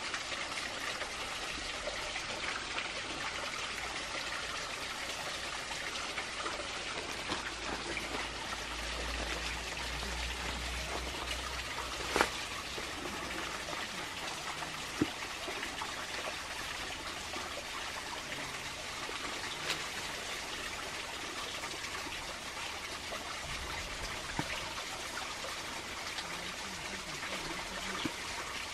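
Water trickling steadily, like a small stream, with a sharp click about twelve seconds in and another about three seconds later.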